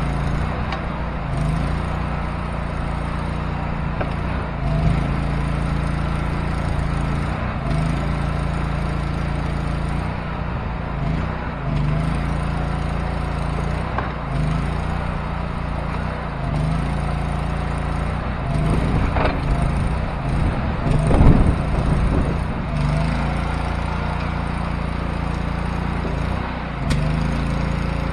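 Small engine of a Go-For-Digger towable backhoe running steadily, its note dipping and recovering every second or two as the hydraulic controls are worked. About three quarters through comes a louder, rough burst of noise.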